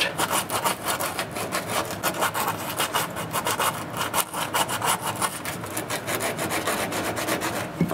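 Emery cloth being worked around the cut end of a copper water pipe in quick, repeated rasping strokes, sanding it clean and shiny to take a compression fitting.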